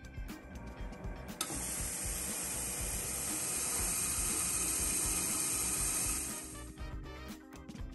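Super Finish jewelry finishing machine running with its bowl of water swirling: a steady hiss that starts suddenly about a second and a half in and fades out after about five seconds, over background music.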